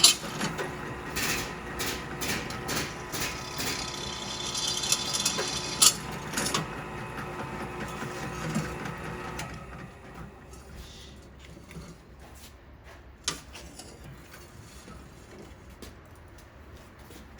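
Power drill running and boring a hole, a steady motor whine mixed with scraping and clicks from the bit; it stops about nine and a half seconds in, leaving faint handling clicks and one sharp knock.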